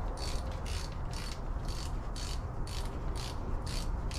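Ratchet wrench clicking in a steady rhythm, about three to four clicks a second, as a bolt is turned on the power steering pump mounting.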